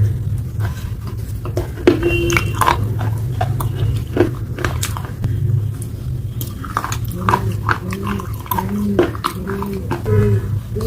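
Close-miked eating of pasta: sharp clicks of cutlery against the dish and chewing, over a steady low hum. In the second half comes a row of short pitched vocal sounds, each rising and falling, about two a second.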